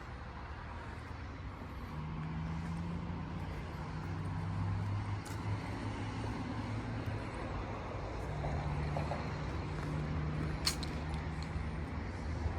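A motor engine drones with a low, steady hum twice over a noisy outdoor background, each time building up and fading away after a few seconds. A short sharp click comes near the end.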